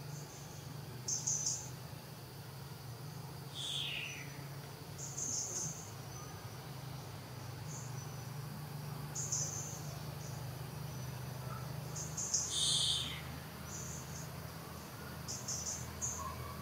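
Insects chirping in short high-pitched bursts every one to three seconds, with two brief calls falling in pitch, one about four seconds in and one near thirteen seconds, over a steady low hum.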